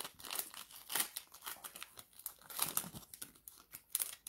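Foil wrapper of a 2020 Mosaic NFL cello pack crinkling and tearing as it is ripped open by hand, in irregular rustles.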